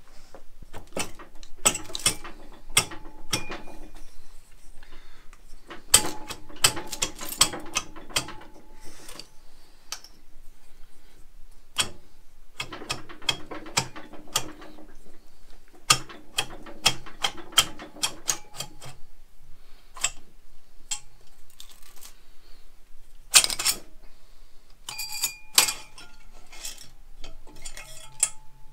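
Honda CB750 finned cylinder block being rocked back and forth and eased up its studs and off the pistons, making bursts of metallic clinking and rattling with short pauses between.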